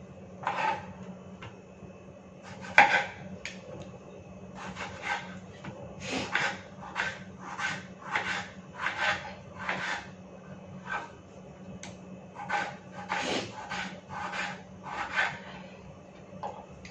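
Kitchen knife slicing a tomato on a wooden chopping board: about twenty short knocks of the blade through the fruit onto the wood, in uneven clusters, with a louder knock about three seconds in. A steady low hum runs underneath.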